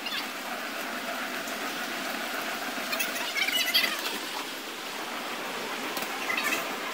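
Steady rolling noise of an airport passenger buggy driving through the terminal, with a few clicks and rattles about three and a half seconds in.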